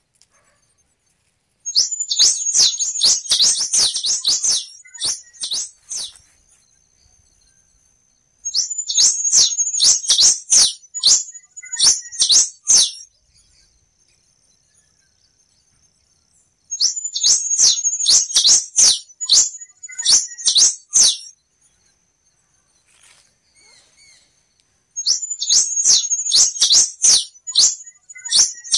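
Black-and-rufous warbling finch (quem-te-vestiu) singing: four bursts of rapid, high, twittering notes, each about three to four seconds long, repeated roughly every eight seconds. A faint steady high tone runs between the songs.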